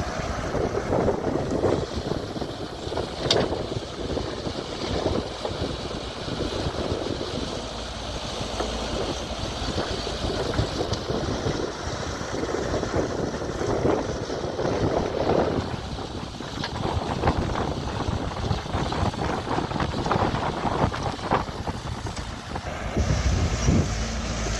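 JCB 3DX backhoe loader's diesel engine running as it works, with wind buffeting the microphone; the low rumble grows louder near the end.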